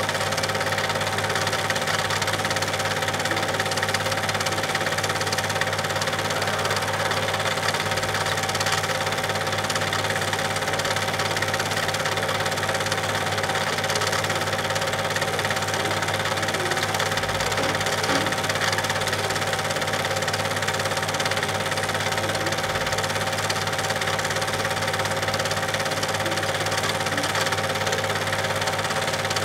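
Super 8 film projector running steadily: its motor and film transport make a continuous, unchanging mechanical running sound.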